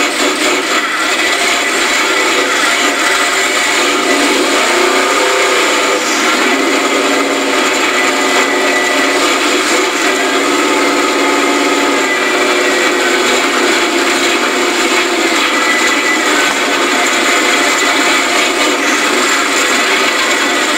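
4x4 mud truck's engine running loud and steady as the truck drives, heard from inside the cab.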